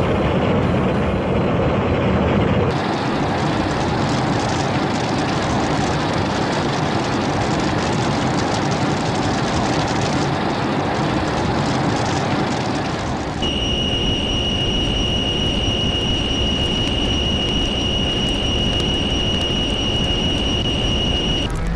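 Cartoon sound effects: a loud, dense rumbling noise, and from about two-thirds of the way in a steady high-pitched whine with overtones joins it, the sound of Godzilla's atomic-breath beam firing. The whine cuts off just before the end.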